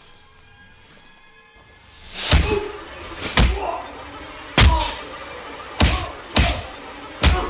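A beating: six heavy punches land one after another, starting about two seconds in, spaced roughly a second apart, over a low music bed.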